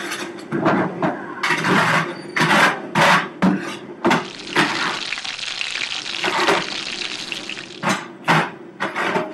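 A run of quick shakes of salt pouring from a shaker, then a steady hissing sizzle from deep-fryer baskets for about three and a half seconds, followed by a few more short noisy bursts near the end.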